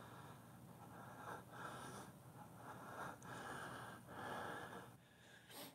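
A man breathing close to the microphone, a string of audible breaths in and out, with a short click near the end.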